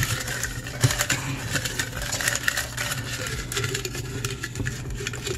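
Folded paper slips rustling and crackling with many small clicks as a hand rummages through them inside a container to draw one out, over a steady low hum.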